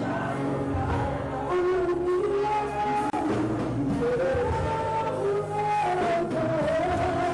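Church worship music: a melody moving in long held notes over a steady low bass.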